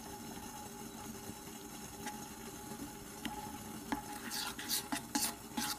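Spatula stirring chocolate and butter as they melt in a bowl over a water bath, over a steady background hum. From about four seconds in comes a quick run of short stirring strokes against the bowl.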